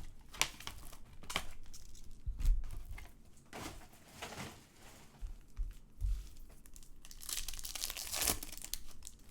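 Plastic and foil trading-card packaging being torn open and crinkled by hand, in irregular short crackles and rips, as a Topps Chrome Update box and its packs are opened.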